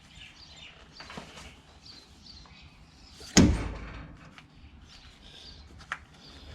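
A single heavy thump about three seconds in, with a few light knocks and handling noises before and after it.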